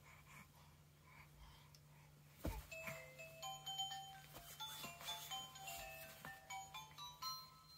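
A single knock about two and a half seconds in, then an electronic baby toy plays a short chime tune of bright notes stepping up and down.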